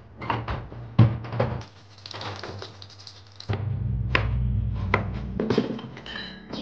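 Household handling sounds in quick succession: clicks and knocks at the lid of a top-loading washing machine, a stretch of hiss, then a knife chopping through raw potatoes onto a plastic cutting board in a few sharp strokes. A brief electronic beeping comes near the end.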